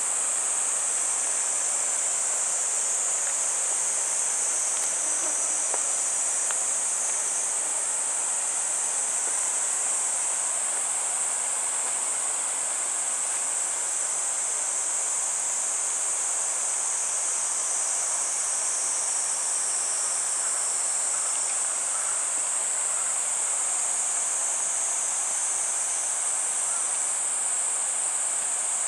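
A steady, high-pitched insect chorus that runs on without a break.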